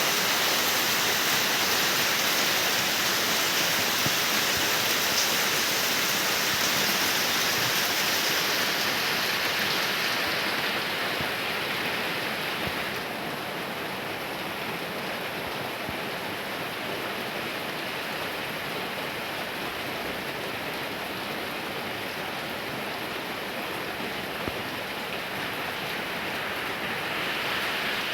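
Steady heavy monsoon rain, an even hiss of rainfall. It grows softer and duller about a third of the way through, then picks up again near the end.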